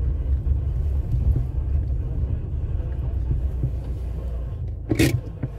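Steady low rumble of a vehicle driving on a dirt track, heard from inside the cabin: the engine and the tyres on the gravel. A single brief sharp noise about five seconds in.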